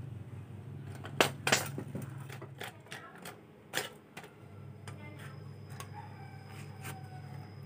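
Irregular metal clicks and knocks as a child's bike wheel axle is set into the frame's dropouts and worked at with a hand tool, the loudest knocks about a second and a half in, over a low steady hum.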